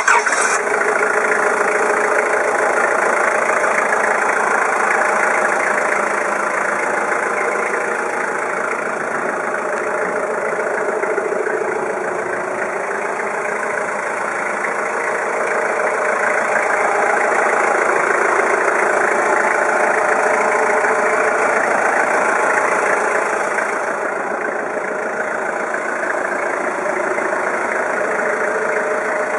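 Manitou MI30D 3-tonne diesel forklift's engine idling steadily, heard close with the engine cover open.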